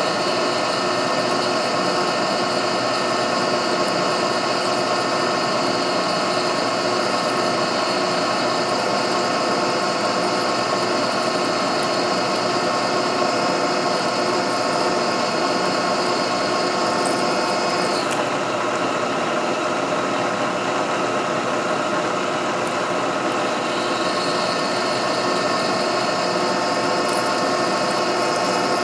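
Milling machine spindle running steadily while a twist drill bores slowly into a metal rod, a steady whine made of several held tones. The spindle is turning slow for the size of the bit. A high tone in the whine cuts out about 18 seconds in and comes back gradually some six seconds later.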